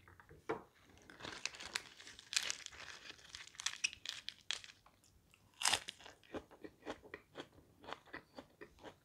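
Crisp green lettuce leaves crinkling and crunching as they are bitten into, with one loud crunch a little past halfway, then crunchy chewing at about two chews a second.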